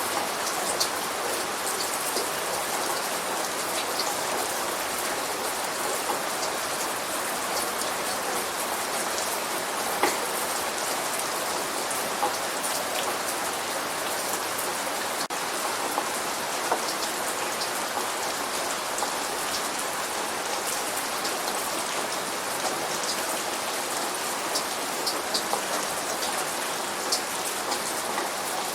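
Steady light rain, an even hiss with scattered close drops ticking on a surface, the most distinct about ten seconds in.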